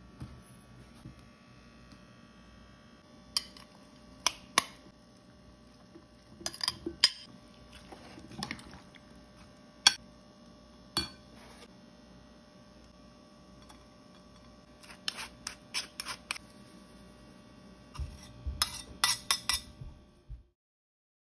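Metal spoon clinking and scraping against a bowl while stirring chopped raw fish and vegetables: scattered sharp clinks, with quick runs about six seconds in, around fifteen seconds and near the end, over a faint steady hum. The sound cuts off suddenly just before the end.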